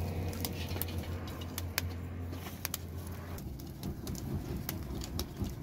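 Wood and brush fire crackling under a stone griddle: irregular sharp pops and snaps from burning twigs and green brush. A steady low hum runs beneath it and stops about three and a half seconds in.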